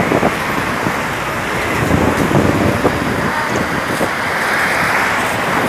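Roadside traffic noise: the engine rumble and tyre noise of a passing vehicle, heaviest about two to three seconds in, with no horn sounding.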